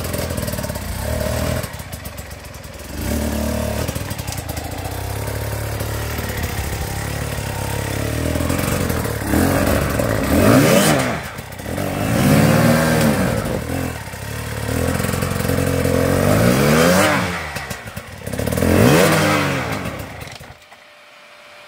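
Off-road dirt bike engine running, then revved in four or five short rising-and-falling bursts as the bike works over rocks, with some clattering; the engine stops suddenly near the end.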